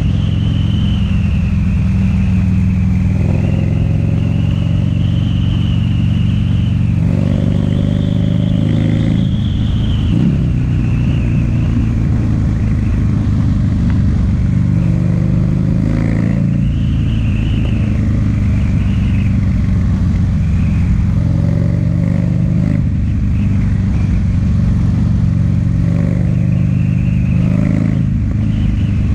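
Loud air-cooled V-twin of a Buell XB1200SS running under way through a Jardine aftermarket exhaust, the engine note rising and falling a few times as the rider works the throttle.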